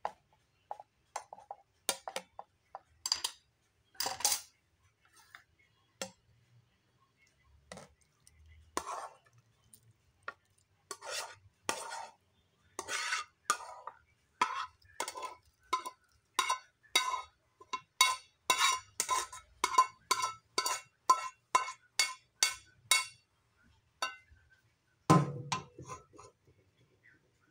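A utensil scraping and knocking against a metal frying pan. It starts as scattered clinks, then runs to a quick series of ringing clinks about two a second through the middle. A duller knock comes near the end.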